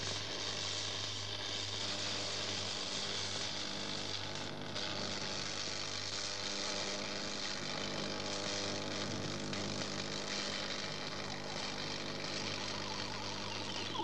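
Stick (arc) welding: the electrode's arc crackles and hisses steadily over a low electrical buzz.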